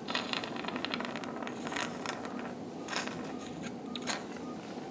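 Surgical suction tube drawing up blood and fluid: irregular crackling and sputtering clicks over a steady low hum.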